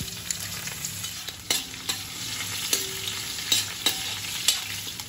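Chopped green chillies sizzling in hot oil in a stainless steel kadhai with mustard, cumin and sesame seeds, a steady frying hiss of the tadka. A spoon stirs them and clinks sharply about six times.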